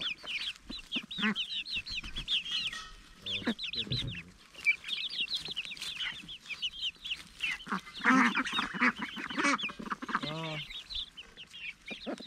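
Flock of young hens calling while they feed, a steady chatter of many short, high chirps and trills. About eight to ten seconds in, a few louder, lower calls stand out.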